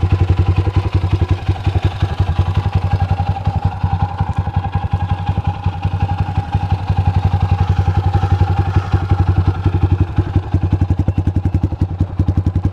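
A 2005 Honda CRF230F's air-cooled single-cylinder four-stroke engine idling steadily through an aftermarket BBR exhaust, an even, rapid train of exhaust pulses.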